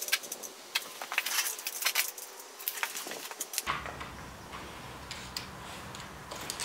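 Light metallic clicking and rattling of a steel tape measure being extended and handled against pine boards. The clicks are busiest over the first three and a half seconds, then thin to a few faint ticks.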